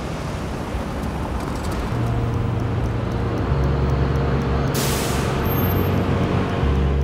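City street traffic noise with the low, steady rumble of a large vehicle's engine, slowly growing louder. About five seconds in comes a short, sharp hiss of air.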